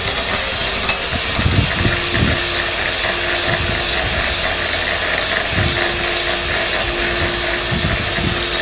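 Anex electric hand mixer running steadily, its beaters whisking cake batter in a glass bowl, with a constant high-pitched motor whine.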